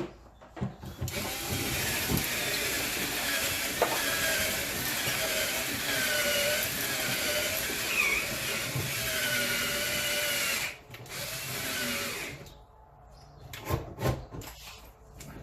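Handheld power tool, like a drill, running for about ten seconds, its pitch wavering as it works under load, then briefly running again more quietly; a few knocks near the end.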